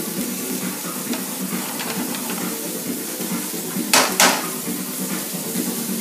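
Shrimp scampi sizzling in a frying pan as a utensil stirs and clinks against the pan, with two sharp clatters about four seconds in.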